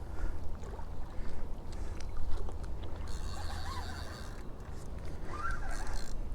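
Steady low wind rumble on the microphone, with a few faint wavering calls in the second half.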